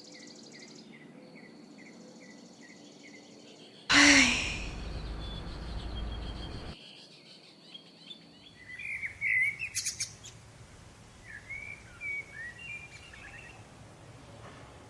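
Birds chirping in short scattered bursts, with a steady high insect-like trill and regular chirps in the first seconds; a person sighs loudly about four seconds in.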